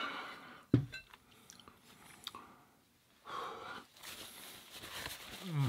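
Eating-show mouth sounds as the last of a bowl of ramen is finished, with a sharp knock about a second in as the ceramic bowl is set down on a wooden board. Later, a paper napkin rubs across the mouth with a soft hiss, and near the end comes a short hum of the voice falling in pitch.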